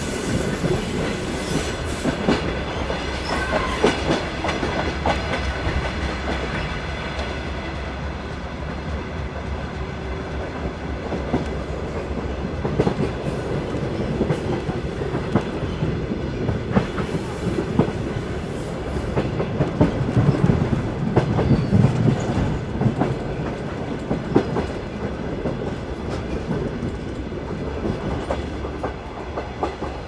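A moving train running along the track: a steady rumble with the wheels clattering irregularly over the rail joints, growing louder for a few seconds about two-thirds of the way through.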